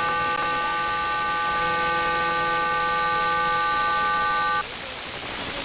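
Digital data burst from the Cuban number station on 11530 kHz shortwave, heard through a software-defined radio: a steady chord of several held tones. It cuts off suddenly about four and a half seconds in, leaving shortwave static.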